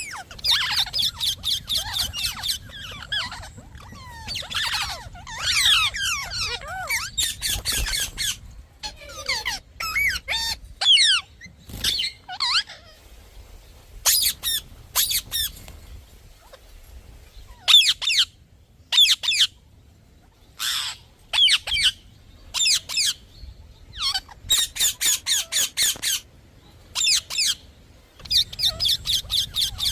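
Parrot chirping and squawking: trains of rapid, shrill repeated notes, with short pauses between the bouts.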